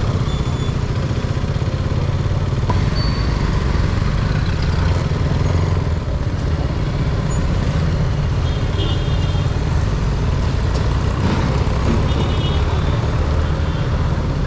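Motorcycle engine running at low speed through city traffic, a steady rumble mixed with wind on the microphone. Two short, high beeps sound about nine and twelve seconds in, typical of other vehicles' horns.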